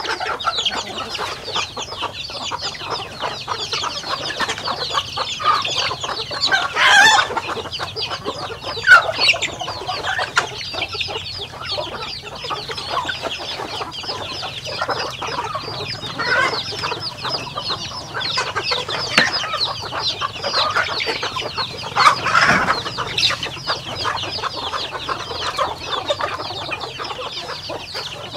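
A feeding flock of chickens clucking steadily, with chicks peeping and many quick ticks among the calls. A few louder calls stand out about a quarter of the way in and again about three-quarters through.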